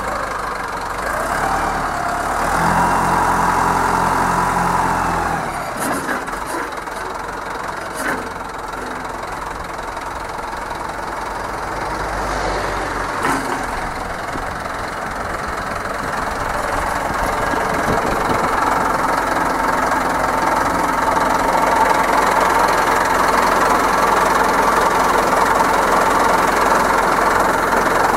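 Everun ER15 compact wheel loader's Xinchai diesel engine running. It revs up about two seconds in, holds for a few seconds and drops back, then builds louder again in the second half, with a couple of sharp clicks along the way.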